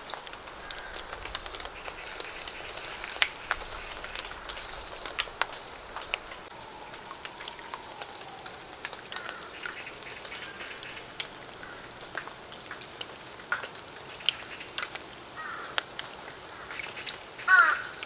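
Steady light rain, with drops ticking and splashing into a shallow puddle and onto wet fallen leaves. A bird calls several times in short bursts, loudest near the end.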